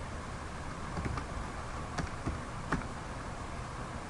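A few scattered keystrokes on a computer keyboard, single separate clicks over a faint steady hiss.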